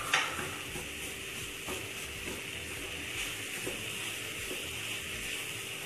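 Grated radish stuffing sizzling in oil in a non-stick kadhai while a spatula stirs it, as the radish's water cooks off. A sharp spatula scrape just after the start, then a steady sizzle with a few soft stirring scrapes.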